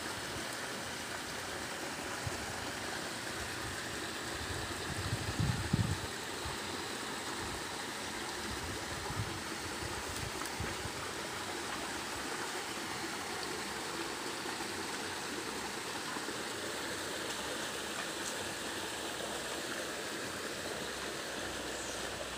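Shallow muddy stream flowing steadily, water running over rocks. A few brief low bumps about five seconds in.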